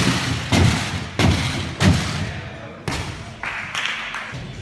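A gymnast tumbling along a sprung tumbling track, hands and feet striking it in quick succession: a run of heavy thuds about two-thirds of a second apart over the first three seconds, each ringing on in a large echoing sports hall.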